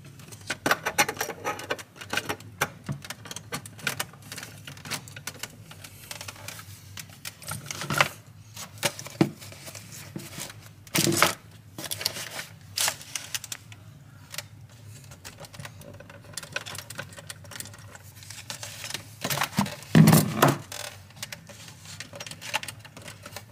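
Irregular clicks and knocks of a DVI cable plug being handled and fitted into a monitor's port, with a few louder knocks along the way.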